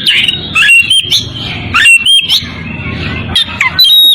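Oriental magpie-robin (kacer) singing in breeding condition: a rapid run of short whistled notes sliding up and down, mixed with harsh sharp notes, with a brief pause about halfway through. The song is a challenge call to a rival male.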